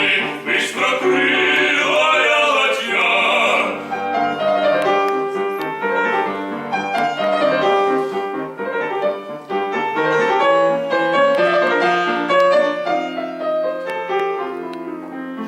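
Russian romance for voice and piano: an operatic male voice holds the end of a sung phrase over the piano for about the first four seconds, then the piano plays a flowing interlude alone.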